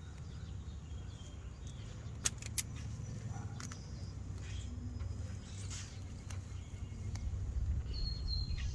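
Two sharp snips a fraction of a second apart from wire cutters cutting the tongue jack's power wire, over a steady low outdoor rumble. A bird chirps briefly near the end.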